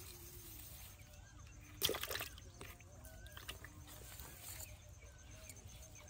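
Quiet outdoor ambience with faint, small chirps repeating about once a second, and a short burst of splashing or handling noise about two seconds in.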